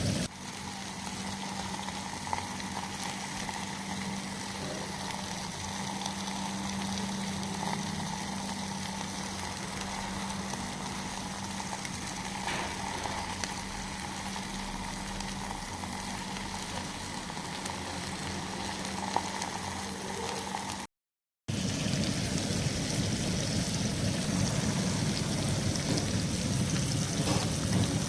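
Fish frying in hot oil on a tawa: a steady crackling sizzle over a low hum. It cuts out for a moment about two-thirds of the way through and comes back a little louder.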